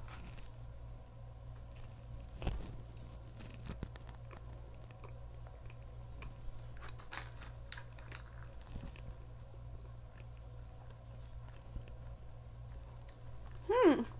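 A person chewing a bite of rolled-oat flapjack with honeycomb, with soft crunches and small crackling clicks and a single soft thump about two and a half seconds in. Near the end a brief, louder 'mmm' of enjoyment that falls in pitch.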